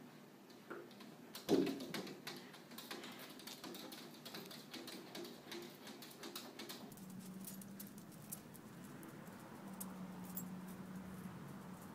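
Light tapping and scratching of paws on a glass door pane, a cat and a small dog pawing at each other through the glass, with a brief louder sound about a second and a half in.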